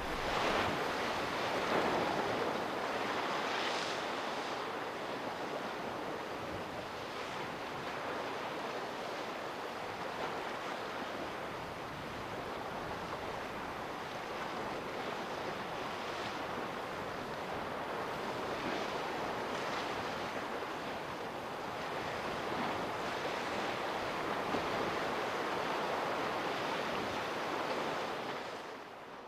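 Sea waves washing in a continuous rushing that swells and eases slowly, with some wind, fading out near the end.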